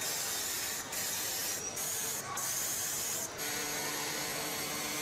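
Compressed air hissing from a hand-held pneumatic assembly tool on an air hose, in four short bursts over about three seconds.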